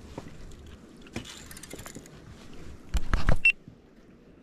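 Handling noises: scattered light clicks, then a brief loud clatter of knocks about three seconds in, ending in a short high squeak.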